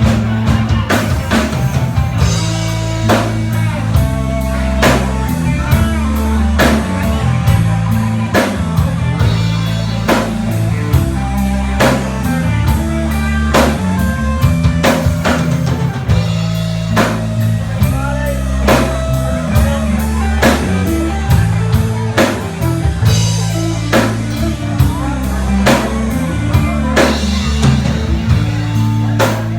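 Rock band playing an instrumental passage with no singing: guitar over a moving bass line and a steady drum-kit beat.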